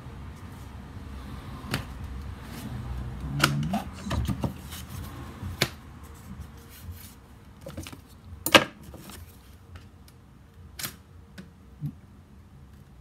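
Paper leaflets and packaging being handled on a wooden workbench: rustling, with scattered sharp clicks and knocks, the loudest about eight and a half seconds in.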